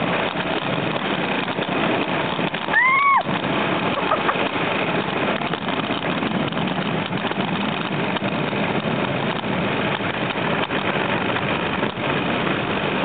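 Bobsled-style mountain coaster car running along its rail track, a steady rumble of the car on the rails. About three seconds in there is a short whoop that rises and then falls.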